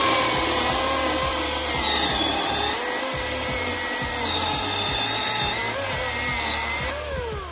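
Milwaukee M18 cordless electric chainsaw cutting through a thicker log of wet, freshly felled green wood. The motor's whine sags a little as the chain works under load, then falls in pitch near the end as the saw winds down.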